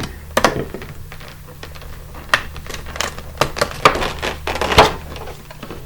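Irregular light clicks and taps of a Pokémon card collection box's cardboard and plastic packaging being handled as it is unpacked.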